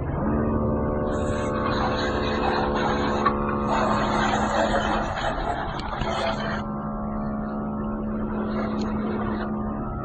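Electric pump of a 12-volt 80 W portable car washer kicks in and runs with a steady hum, with water spray hissing from about a second in until a few seconds before the end.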